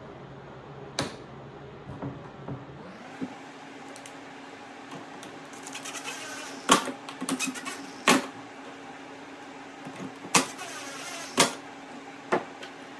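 Sharp clicks and knocks of plastic crate parts and hinge hardware being handled and fitted, with four louder knocks in the second half. A steady low hum sets in about three seconds in.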